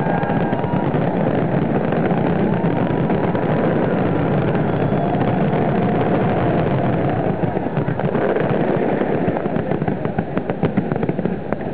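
Dense fireworks barrage: a loud, continuous rumble of many overlapping shell bursts, with sharp crackling bangs standing out more clearly in the last few seconds.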